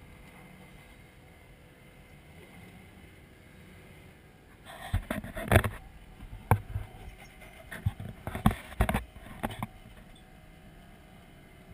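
Faint low running of a Jeep's engine as it crawls over rock. About five seconds in comes a burst of loud knocks and rustles close to the microphone, lasting about five seconds.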